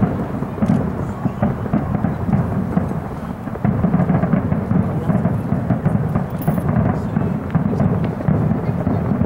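Fireworks shells bursting in rapid succession, their reports running together into a continuous rumble with sharp cracks on top, getting louder about a third of the way in.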